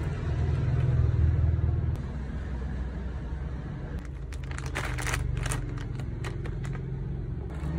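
A low rumble, loudest in the first two seconds, then plastic snack packaging crinkling in a run of sharp crackles from about four seconds in until shortly before the end.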